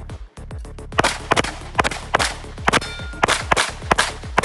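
Rapid pistol fire from a custom-built open-division race gun: about nine shots, roughly two a second, starting about a second in, with metallic clangs of steel targets ringing when hit.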